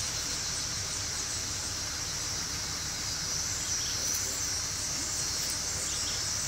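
Steady, high-pitched chorus of insects buzzing, with a low rumble underneath.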